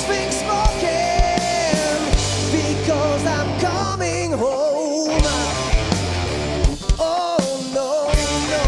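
A live rock band playing a song, with drums, bass and a lead line that slides and bends between notes.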